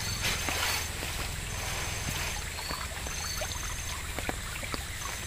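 Water trickling and dripping as a wet plastic sheet is lifted and handled in a shallow bamboo fish trap, with scattered small crackles and drips.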